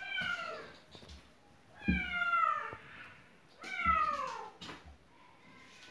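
Kitten meowing three times, each call falling in pitch, asking to be let in through a closed window.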